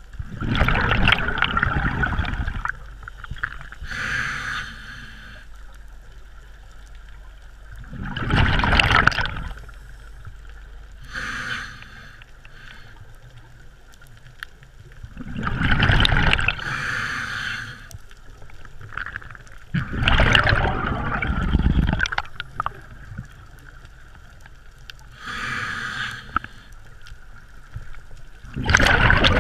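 Scuba breathing through a regulator underwater: five loud bubbling exhalations spaced several seconds apart, with three quieter hisses between them.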